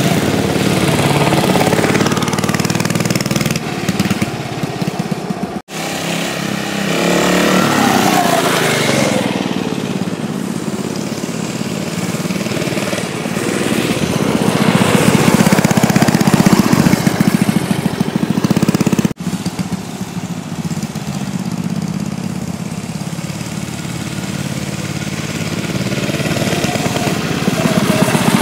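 Mini bike's small single-cylinder engine running and being revved up and down as it is ridden, its pitch rising and falling again and again. The sound breaks off abruptly twice, about six seconds in and about two-thirds of the way through.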